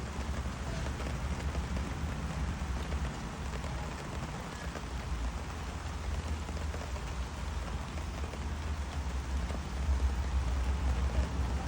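Steady rain falling, an even hiss of drops over a low rumble; the rumble swells toward the end.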